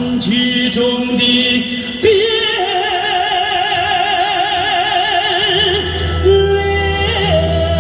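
Chinese opera-style music: long held notes with a wide vibrato, changing pitch a few times over a steady low accompaniment.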